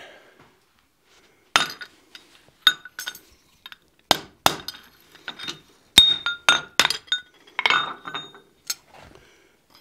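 Hand hammer striking a steel drift set in the hot punched hole of a steel bar on an anvil: about a dozen irregular metallic strikes, several with a short ring. The drift is being driven in to true the hole round.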